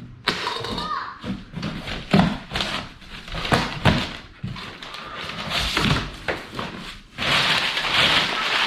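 Paper packing material being pulled out of a parts box and crumpled: irregular rustles and knocks, turning into steady crinkling about seven seconds in.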